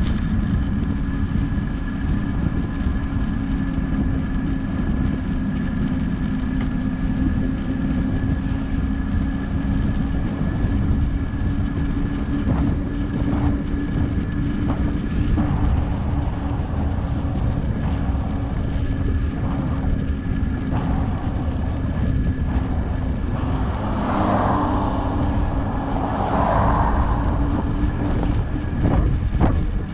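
Wind rumbling steadily on the microphone of a bicycle coasting fast downhill, with a faint constant hum under it. Two louder rushing swells come near the end.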